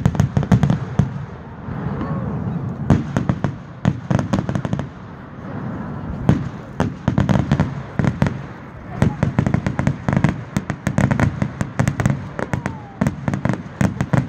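Fireworks display: aerial shells bursting overhead with rapid bangs and crackling, coming in dense volleys. There is a short lull about a third of the way in and another just past the middle.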